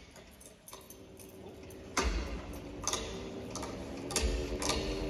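Movie sound effects of a giant amplifier being switched on over the hall's speakers: switches click one after another, and from about two seconds in a low electrical hum starts up and grows as the amp powers up, with clock-like ticking behind.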